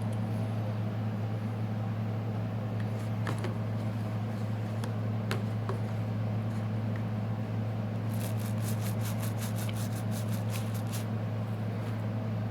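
A steady low machine hum under scattered light clicks, with a quick run of short scratchy strokes, about seven a second, for a few seconds about two-thirds of the way through: a small brush scrubbing corrosion off a water-damaged phone's parts.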